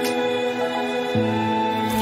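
Soft background music: sustained melodic instrumental notes, with a new, lower note coming in about a second in.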